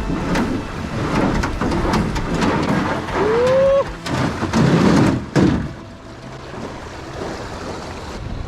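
Rushing, splashing water around a jon boat at a river spillway, with repeated knocks and scrapes on the hull and a louder surge of water about five seconds in. A short whine rises and falls a little after three seconds.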